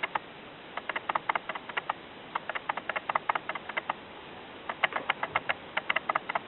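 Kitten eating, its mouth making quick runs of small wet clicks, three spells of clicking with short pauses between.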